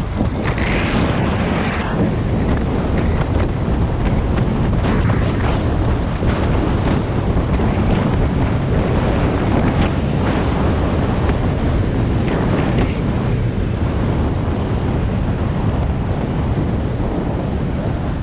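Wind buffeting the microphone of a camera carried by a downhill skier, a loud steady rush, with skis scraping over the snow and a few sharper scrapes on turns.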